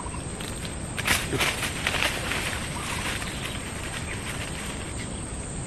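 Leaves and undergrowth rustling and crackling as a person crouches and pushes through dense brush, strongest in a few brief bursts about one to two and a half seconds in.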